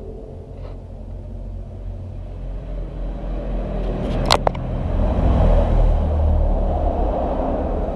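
A motor vehicle's engine rumbling nearby, growing louder through the first half, with one sharp click about four seconds in.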